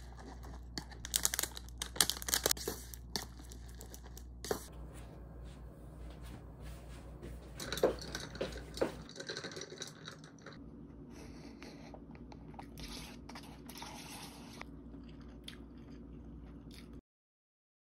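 Wooden chopsticks stirring saucy instant noodles in a paper cup: wet squishing with sharp clicks against the cup, busiest in the first few seconds and again about eight seconds in. The sound cuts off suddenly near the end.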